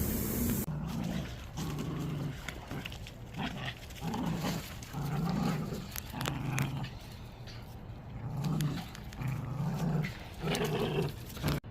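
Dogs growling at each other in play, a run of low growls in short bursts one after another.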